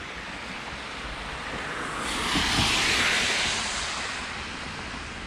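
A car passing on a wet asphalt road: the hiss of tyres on the wet surface swells to a peak about three seconds in, then fades away.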